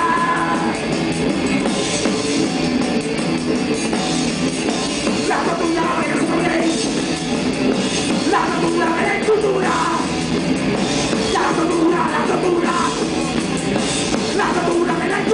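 Live punk rock band playing: electric guitar, bass and a drum kit with cymbals, steady and loud through a camera microphone in the crowd.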